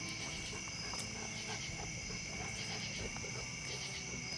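Steady chorus of insects, crickets or similar, holding a continuous high-pitched drone at two pitches, with faint scattered ticks underneath.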